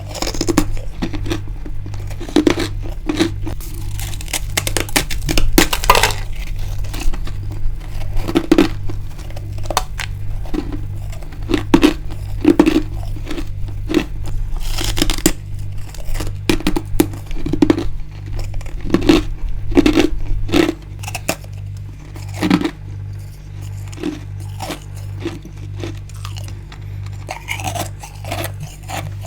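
Close-up crunching bites and chewing of frozen freezer frost, a run of sharp, irregular crackles, loudest in the first two-thirds and softer near the end. A steady low hum that pulses a little more than once a second runs underneath.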